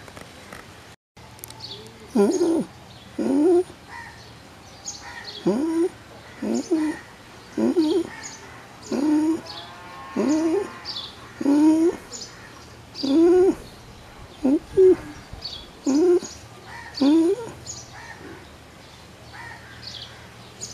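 Domestic pigeon (rock dove) cooing: about a dozen short, low coos, each swelling up and then falling in pitch, repeated roughly once a second. The cooing starts about two seconds in and stops a few seconds before the end.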